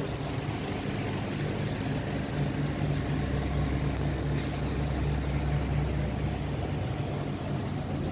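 A steady low mechanical hum, with a faint even pulsing in the hum through the middle.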